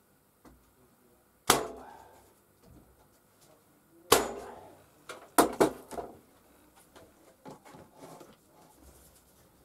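Nail gun firing nails through slider rails into plywood: a sharp shot about one and a half seconds in, another near four seconds, then two in quick succession, followed by lighter clicks and knocks.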